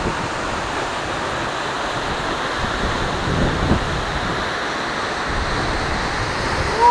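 Waterfall plunging into a rocky pool: a steady, even rush of falling water, with brief low rumbles of wind on the microphone now and then.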